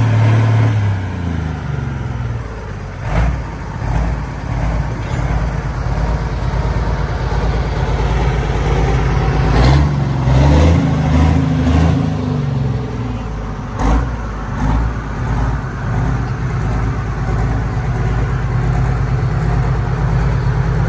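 John Deere pro stock pulling tractor's turbocharged diesel engine dropping from a high rev to idle about a second in, blipped several times around halfway, then running steadily again. A few brief knocks sound in between.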